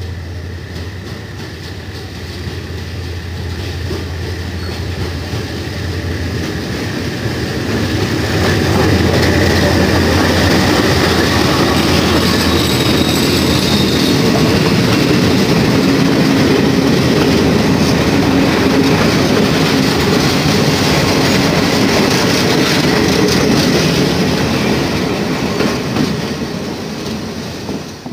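Locomotive-hauled passenger train of coaches rolling past close by, its wheels clicking over the rail joints. It starts with a steady low hum, grows louder after a few seconds as the coaches pass, and fades near the end.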